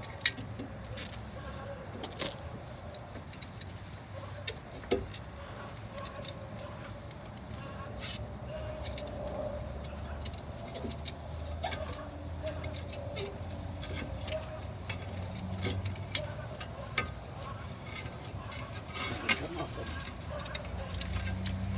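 Scattered small clicks and knocks of a C-clamp being screwed in against a brake caliper, pushing the piston back into its bore, over a low steady rumble.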